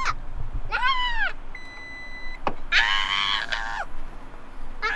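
Young children's high-pitched squeals, one about a second in and a louder one about three seconds in, with a short steady electronic beep and a click between them.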